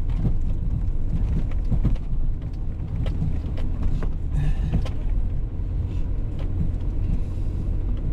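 Road and engine noise inside the cabin of a moving car: a steady low rumble, with scattered light clicks and a brief higher sound about halfway through.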